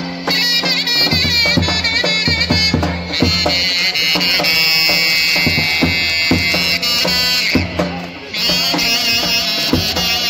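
Turkish folk dance music in the davul-zurna style: a shrill double-reed pipe plays an ornamented, warbling melody over steady bass drum strokes, holding long high notes in the middle before returning to quick turns near the end.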